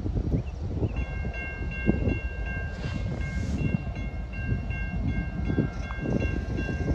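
Railroad grade-crossing warning bell starting about a second in and ringing steadily, which signals an approaching train, over a low, gusty rumble.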